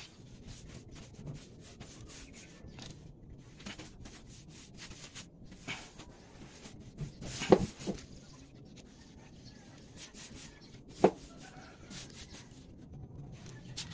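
Wet paintbrush bristles scrubbing rust converter onto a corrugated galvanized iron roof sheet: a run of short scratchy brush strokes, with two sharper knocks partway through.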